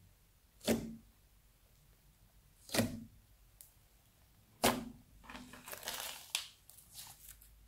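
Fingers pressing into a slab of glittery slime give three sharp pops, about two seconds apart, as the slime is squashed. Then comes a run of quick crackles as it is peeled up and folded.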